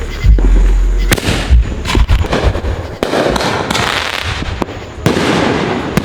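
Fireworks going off: a quick run of sharp bangs and crackles, with several louder bursts that each trail off in a fading crackling hiss.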